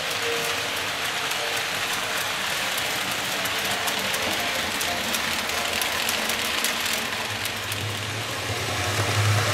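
Märklin H0 model trains running on the layout: a steady rolling hiss with faint ticking from the wheels on the track. A low motor hum builds near the end as a model diesel train draws near.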